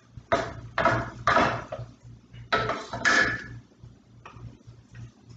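A utensil stirring and scraping around a cooking pot, in about five short strokes within the first few seconds, as butter, milk and cheese powder are mixed together.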